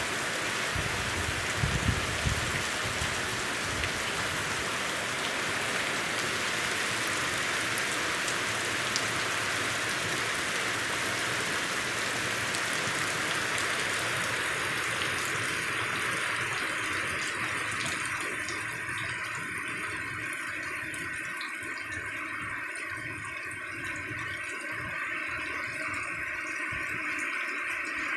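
Heavy downpour of rain pouring steadily onto open pond water and the ground around it, a dense continuous hiss. About two-thirds of the way through it turns duller and a little quieter.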